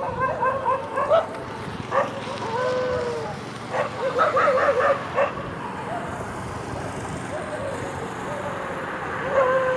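Dogs barking in sharp single barks and short clusters, mixed with high wavering whines and a falling whine. A quieter stretch runs from about six to nine seconds, before the whining starts again near the end.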